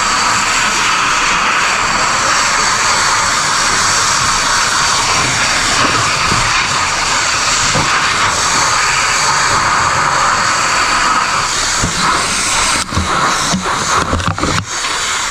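Loud, steady engine-like roar running close by, with a few knocks and brief dips in level near the end.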